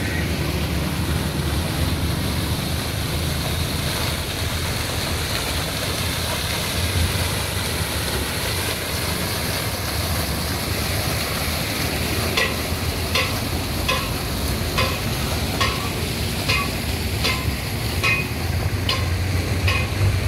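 Water from a burst water main gushing and running across a road, a steady rushing hiss, with a low hum underneath. In the second half a short high beep repeats about once a second.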